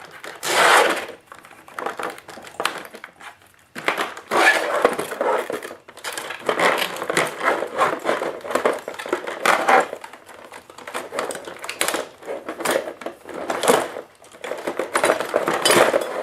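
Packaging being handled by hand: rustling and crinkling of the box and packing in irregular bursts, with light clatter, as a boxed RC track loader is worked free.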